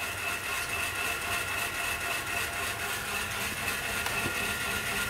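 A steady mechanical hum with a high-pitched whine that holds one pitch throughout.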